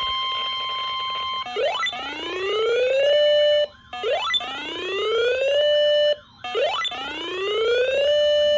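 Weather alert radio sounding its alarm: a steady warning tone about 1050 Hz ends about a second and a half in. Three rising whooping siren sweeps follow, each levelling off on a held note before cutting off. This is the alert before an urgent severe thunderstorm warning is read out.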